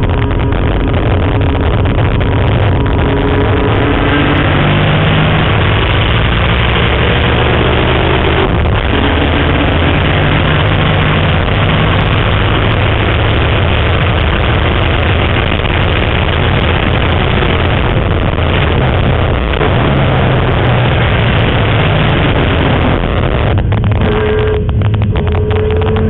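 BMW M3 race car's engine pulling hard, heard from inside the cabin over loud road noise. Its note rises through the gears, with an upshift about eight seconds in, and changes again near the end as the car nears the next corner.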